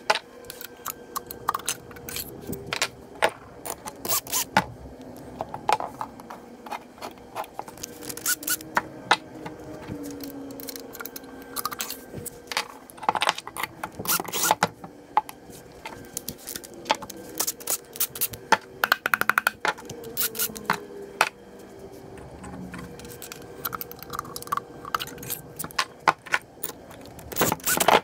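Metal engine parts (forged pistons and connecting rods) being handled on a workbench: irregular sharp clicks, clinks and knocks of metal set down and picked up, with some scraping.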